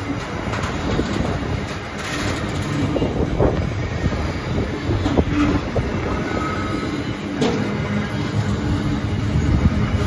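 Container wagons of a long intermodal freight train rolling past close by: a steady rumble of steel wheels on rail, with clacks over the rail joints and a couple of brief wheel squeals around the middle.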